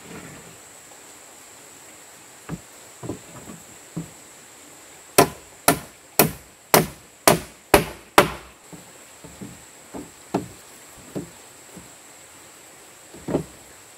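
Hammer blows on a wooden plank nailed to a timber frame: seven sharp, quick strikes about half a second apart, a few seconds in. Lighter wooden knocks come before and after as boards are set against the frame.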